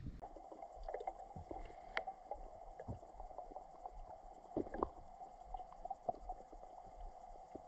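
Faint underwater sound picked up by a submerged camera: a steady low hum with scattered small clicks and pops.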